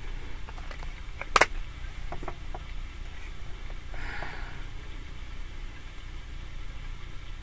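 A tarot card laid down on the table with one sharp tap about a second and a half in, followed by a few small ticks of cards being handled, over a steady low hum.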